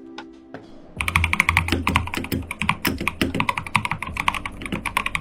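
Fast typing on a Fantech MaxFit81 gasket-mount mechanical keyboard with an FR4 plate, lubed tactile Gazzew Boba U4T switches and PBT keycaps. A few faint clicks, then from about a second in a dense, rapid run of keystrokes.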